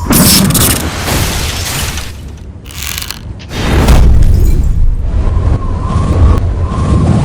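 Added cinematic sound effects over music: a loud boom right at the start, a second sharp hit about three seconds in, then heavy low rumbling impacts.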